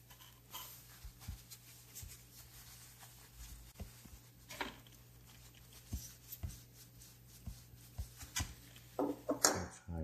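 Paper tissue rustling and rubbing over the metal case of a wet Ronson gas lighter as it is wiped dry, with scattered soft knocks from handling it. Near the end a louder burst of rustling and a clunk as the lighter is set down on the wooden desk.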